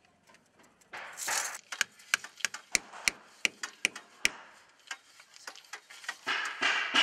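About eight sharp, evenly spaced taps, roughly three a second, as plastic pipe supports are knocked into holes drilled in the wall. A brief scraping noise comes before them and another near the end.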